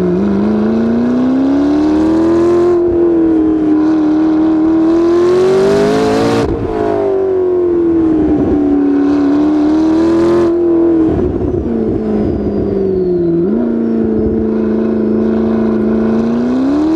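Supercar engine heard from on board a McLaren P1 following a LaFerrari, its pitch rising and falling with the throttle, dipping about eleven seconds in and climbing again near the end.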